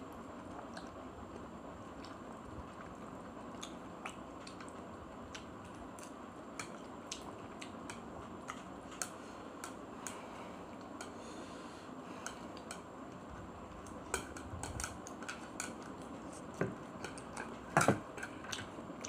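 Plastic chopsticks clicking and scraping against a ceramic plate while gathering up noodles. Scattered small clicks come more often and louder over the last few seconds, over a steady background hiss.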